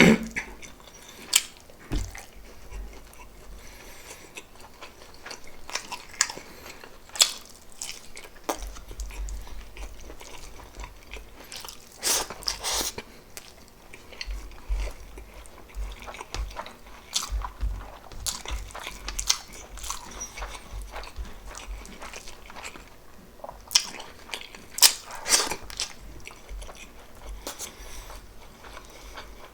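Close-miked chewing and mouth sounds of a person eating pork adobo and rice, with irregular wet smacks and clicks, a few louder than the rest.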